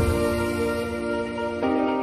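Background music: soft, gentle held chords, moving to a new chord about one and a half seconds in.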